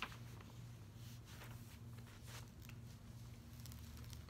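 Faint, scattered rustles of a diamond painting canvas's paper release sheet being lifted and pressed flat by hand, over a steady low hum.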